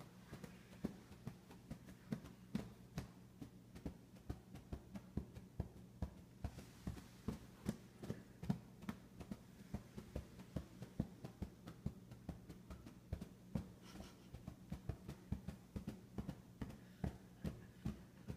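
Two basset hound puppies' wagging tails beating against a padded dog bed: soft, even thumps about three a second, with a faint steady hum beneath.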